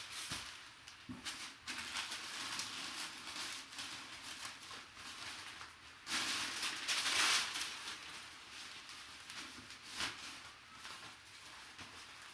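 Rustling and crinkling of plastic and cardboard packaging being handled and opened, with a few sharp clicks; the loudest stretch of rustling comes about six seconds in and lasts over a second.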